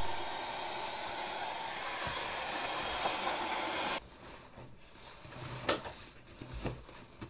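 Hand-held hair dryer blowing steadily, cut off suddenly about four seconds in; then the soft rustle and light knocks of a fabric backpack being handled.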